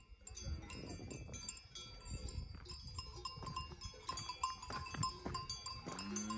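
Several cowbells clanking irregularly on grazing cows, their metallic ringing strikes overlapping. Near the end a cow starts a long low moo.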